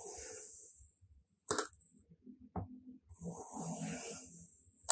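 Stainless steel knife slicing through a block of kinetic sand: two slow cuts, each a soft hissing scrape lasting over a second, and a sharp click after each, the loudest sounds, as the blade comes down on the wooden board.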